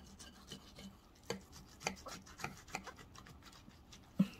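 Knife and fork cutting through steamed napa cabbage and beef, clicking and scraping against the plate several times. A louder, duller knock of cutlery against the plate comes near the end.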